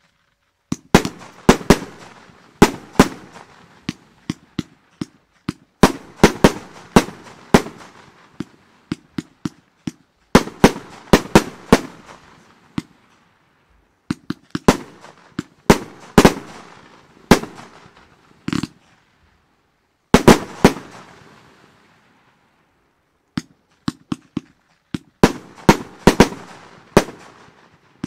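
El Gato Fiesta Grande fireworks firing: a rapid string of sharp shots and bangs, each trailing off. They come in volleys of several shots, with short pauses of a second or two between volleys.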